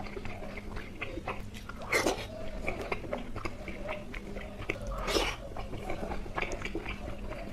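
Close-up mouth sounds of a person eating Indian sweets: steady chewing with many small wet clicks, and two louder bites about two seconds and five seconds in.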